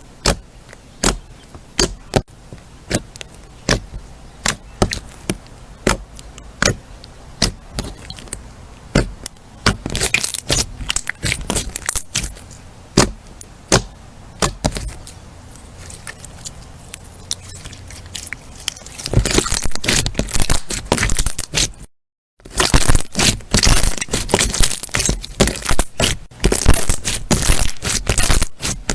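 Crunchy slime being pressed and squeezed, giving sharp crackling pops. At first they come singly, about one or two a second, then they thicken into dense, loud crackling in the second half, with a brief break where one clip cuts to the next.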